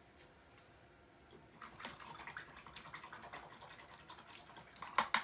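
A paintbrush swished in a cup of rinse water, splashing and clicking against the cup, ending with two sharp clicks.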